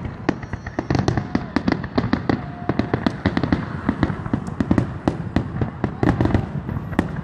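Fireworks finale barrage: aerial shells bursting in quick succession, a dense run of bangs and crackling at many reports a second without a break.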